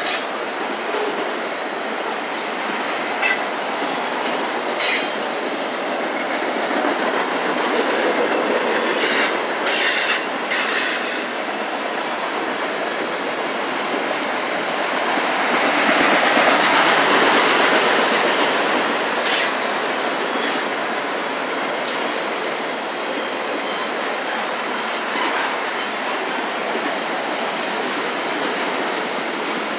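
Autorack freight cars rolling past: a steady roar of steel wheels on rail, broken by scattered sharp clanks and rattles. It swells for a few seconds a little past the middle.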